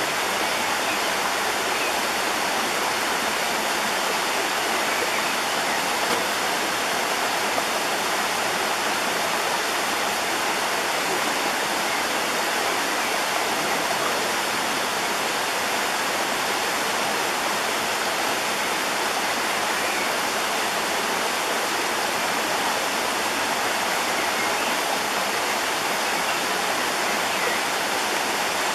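Steady rush of a fast stream running over rocks.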